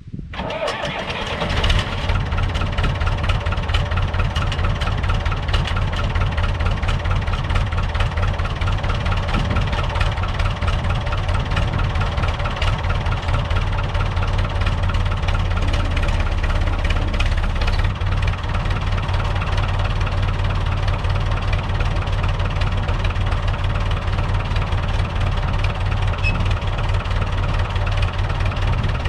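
Long 560 DT tractor's diesel engine catching and coming up to speed in the first two seconds, then idling steadily.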